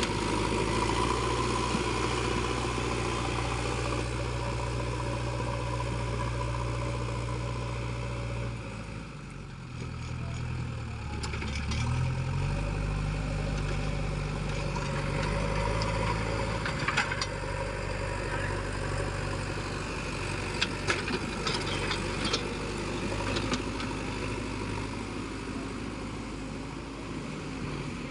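JCB 3DX backhoe loader's diesel engine running steadily at working speed. About nine seconds in it drops in level and pitch, then picks up again about two seconds later, with a few sharp knocks in the second half.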